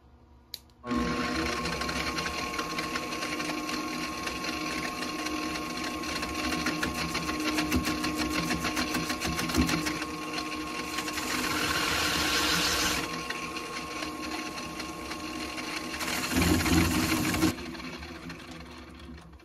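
Wood lathe motor running with a steady whine, switched on about a second in. A hand-held turning chisel scrapes into the plastic base of an LED bulb spinning in the chuck, and the cutting noise swells in two louder spells before the lathe stops near the end.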